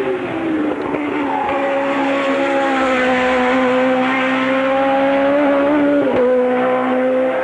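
Engine of a 1984 Formula One car running at high revs. The pitch falls over the first second, then holds nearly steady with a slight rise, and dips briefly about six seconds in.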